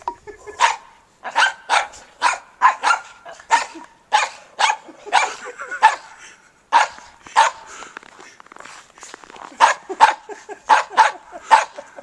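Small dogs barking repeatedly as they play, about two barks a second, with a short lull about two-thirds of the way through.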